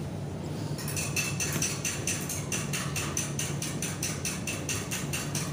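Rapid, even clicking with a faint ring, about six clicks a second, starting about a second in, over a steady low hum.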